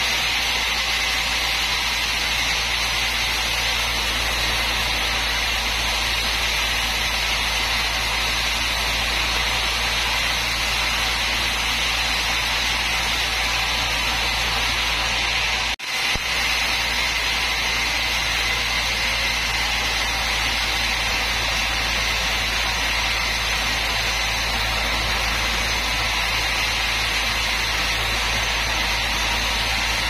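Band sawmill blade running steadily through a large log of old mahogany, a constant high cutting whine over the low hum of the machine. The sound dips for a moment about halfway through.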